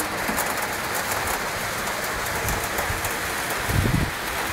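Steady rain falling, an even hiss, with a brief low rumble about four seconds in.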